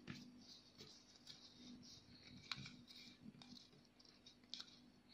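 Faint rustling and crackling of folded origami paper as fingers press and adjust it, with scattered small clicks and a sharper crackle about two and a half seconds in, over a faint steady hum.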